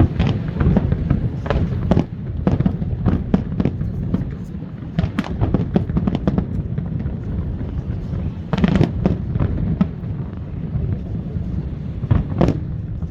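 Aerial fireworks display: a rapid, continuous run of shell bursts and crackles over a dense rumble. There is a cluster of loud bangs about two-thirds of the way through and another near the end.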